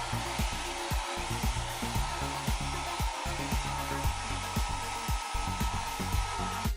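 Philips BHC010 compact hair dryer running, a steady rush of blown air with a faint motor whine.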